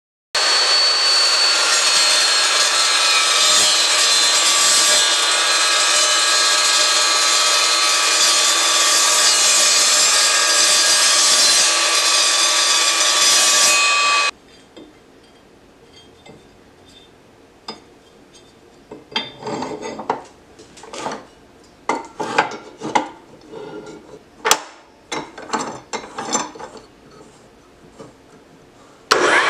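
Evolution S355CPSL metal-cutting chop saw running and cutting metal for about 14 seconds: a loud, high ringing whine whose tone sags slowly under load, stopping abruptly. Then come scattered knocks, clicks and scrapes of square steel tube being set in and clamped in the saw's vise. Near the end the saw's motor starts again with a rising whine.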